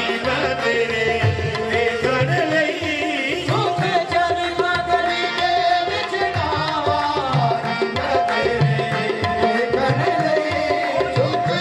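Live qawwali: lead voices singing over harmoniums holding a steady drone, with a tabla beat.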